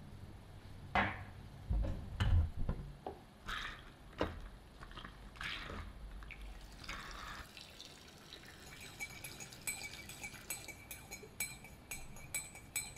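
Drink being made at a pantry counter: a few knocks from a cupboard and jar being handled, a short pour of liquid, then a metal spoon clinking rapidly against the inside of a mug as the drink is stirred.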